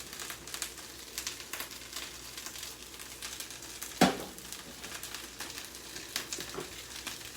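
Chicken and shrimp frying in a pan in cocktail sauce: a steady, crackling sizzle as the sauce cooks down, with one sharp knock about four seconds in.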